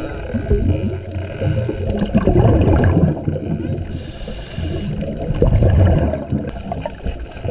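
Underwater recording of Hawaiian spinner dolphins: a few faint, high gliding whistles over a loud, low bubbling water noise that swells twice.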